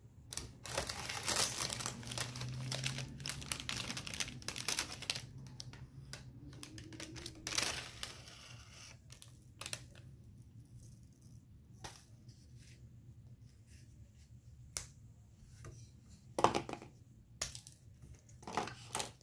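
Plastic snack packaging crinkling and rustling as it is handled, dense for the first several seconds. After that come scattered small snaps and taps, with quieter gaps between them.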